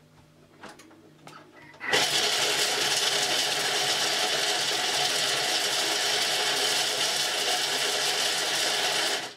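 Thermomix motor and blades chopping squares of chocolate. It starts about two seconds in, runs steadily and loudly, and cuts off suddenly near the end.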